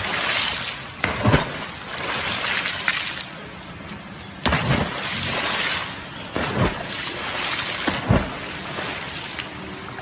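Water splashing and rushing alongside a moving boat, with four louder splashes as dogs jump off the bow into the river.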